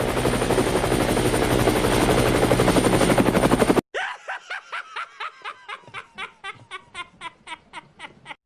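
Two sound effects in turn. First comes a dense, rapid rattle that grows louder and cuts off suddenly almost four seconds in. Then a run of short pitched blips, each falling in pitch, comes faster and faster.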